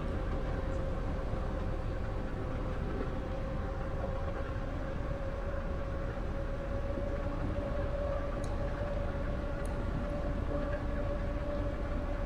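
Electric bike's drive whining at a steady pitch over the low rumble of tyres on asphalt and wind while cruising.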